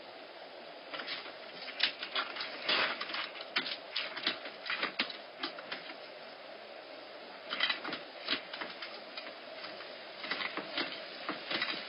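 Bobcat kittens scrabbling and climbing at the enclosure door, making runs of quick clicks and knocks in three bursts over a steady hiss.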